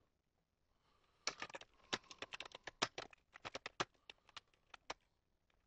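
Faint computer keyboard typing: a run of quick, irregular key clicks that starts about a second in and stops shortly before the end.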